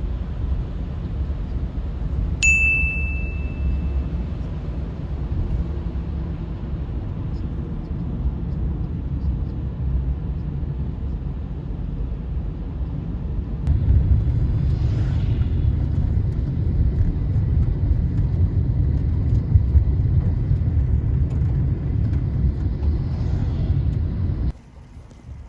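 Steady low outdoor rumble with a single bright, ringing ding a couple of seconds in. The rumble grows louder about halfway through and cuts off abruptly just before the end.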